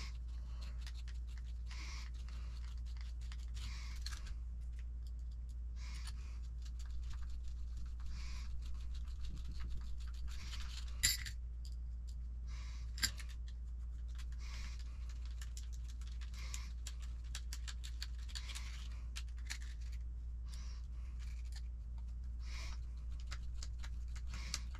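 Hex driver turning small screws into the plastic parts of a 1/10 RC truck kit: irregular faint scratching, rubbing and small clicks of tool and parts, with two sharper clicks about halfway through, over a steady low hum.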